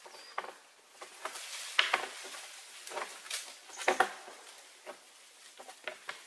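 Irregular rustling and crackling of dry leaves and twigs underfoot as a red deer stag shifts on the woodland leaf litter, loudest twice, around two and four seconds in. A bird chirps once, faintly, near the start.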